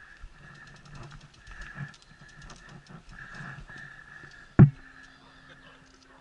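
A single sharp knock about four and a half seconds in, over faint handling noise with light ticking.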